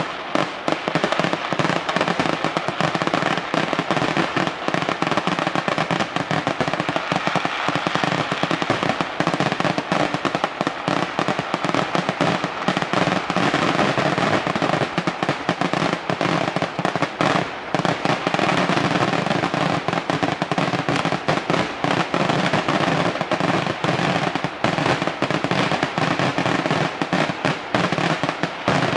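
Ground-level firecrackers of a fireworks display going off in a dense, unbroken barrage, the bangs following each other so fast they run together with no pause.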